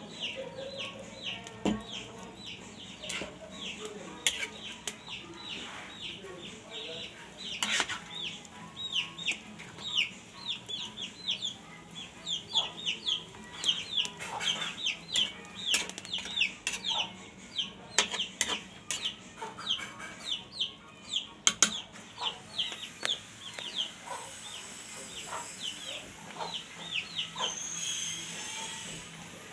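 Chicks peeping continuously, a few short falling peeps a second. A metal spatula knocks and scrapes against the pan now and then.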